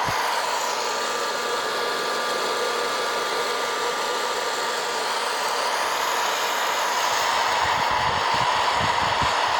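West Bend hot air corn popper running steadily, its fan blowing hot air through green coffee beans as they roast, still short of first crack. A steady blowing hiss with a faint hum, and some low rumbling near the end.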